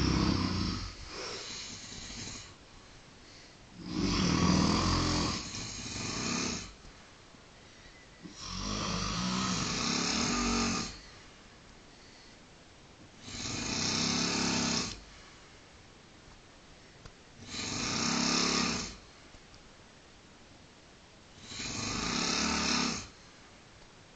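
A man snoring in his sleep: six long, loud snores, about one every four seconds, with quiet breathing gaps between them.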